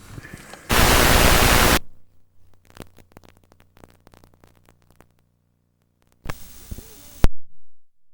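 Static hiss from the end of an old video recording: a loud burst lasting about a second, then faint scattered crackling clicks, and a second, shorter burst of static before the sound cuts off.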